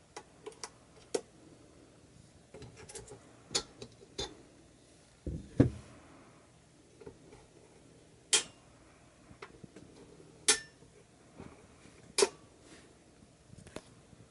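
Scattered clicks and knocks from the reel arms and levers of a Bell & Howell Super 8 projector being moved and set by hand, with a duller, deeper thump about five and a half seconds in and sharp clicks every couple of seconds after it. The projector's motor is not running.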